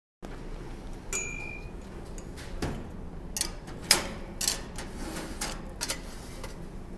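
Kitchen clatter of cookware and utensils: about half a dozen sharp knocks and clinks, one with a brief metallic ring about a second in and the loudest near the middle.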